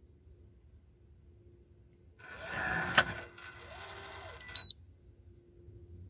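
Schlage Encode smart deadbolt unlocked from its app: the motor whirs as it draws the bolt back, with a sharp click about three seconds in, then a softer whir, and a short high beep near the end. Heard with the microphone pressed against the door.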